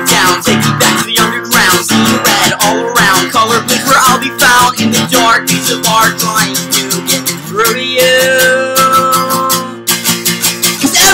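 Acoustic guitar strummed in a fast, steady rhythm, with a man singing over it, holding one long note about eight seconds in.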